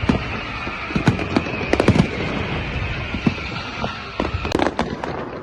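New Year's fireworks going off: a run of irregular sharp bangs and crackles, thickest about a second or two in and again near the end, over a steady background din.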